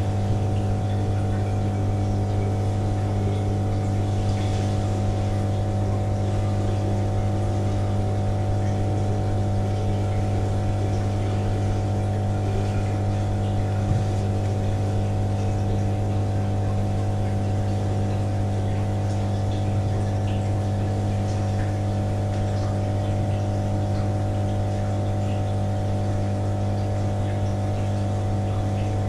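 Steady electric hum of a laboratory tank's water pump running, with faint water noise underneath.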